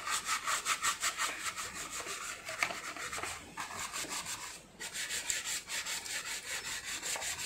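Rapid back-and-forth scrubbing of a washing machine's detergent drawer, about five strokes a second with a couple of short breaks, rubbing off detergent residue loosened by a baking soda and vinegar soak.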